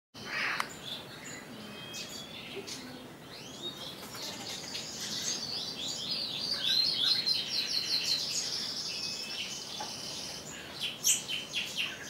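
A chorus of small birds chirping and singing, with many quick, high-pitched notes overlapping. It is busiest in the middle, and a cluster of sharp chirps comes near the end.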